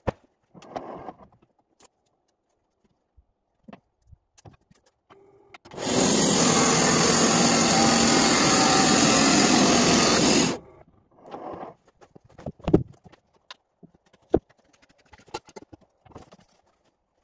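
Wood-Mizer LT15 Wide band sawmill, driven by an 11 kW electric motor, sawing through a log for about five seconds in the middle, starting and stopping abruptly. Before and after the cut there are scattered knocks and clunks.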